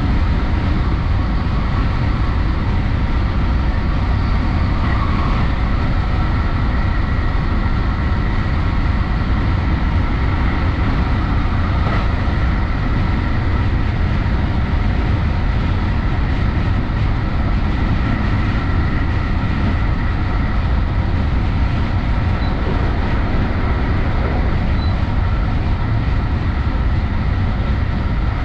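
JR West Special Rapid Service electric train running steadily at speed, heard from inside the front car: a continuous rumble of wheels on rail with a faint steady whine over it.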